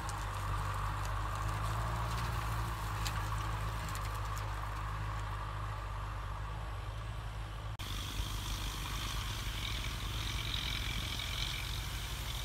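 Kubota farm tractor's diesel engine running steadily under load as it pulls a tillage implement through dry soil. About eight seconds in the sound changes abruptly, and a steady high-pitched drone joins the engine.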